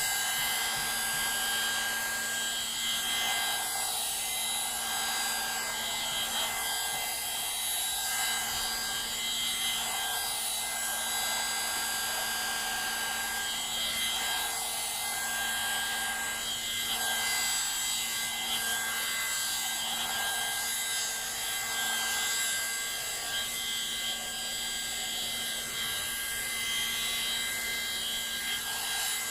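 Hot air brush (hair dryer brush) running steadily: an even rush of blown air with a constant motor whine on top.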